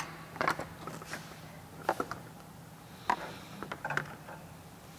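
Plastic push clips popping and a plastic trim panel knocking as a screwdriver pries the panel off the front of a Jeep: a handful of sharp clicks and knocks, a second or so apart.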